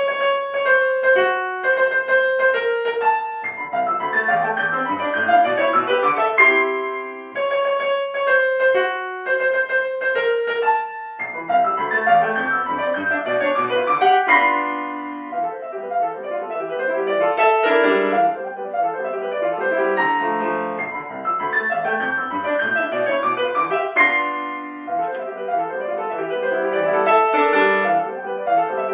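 Grand piano played solo, starting out of silence: a few seconds of sparse, high notes, then fuller chords reaching down into the lower register.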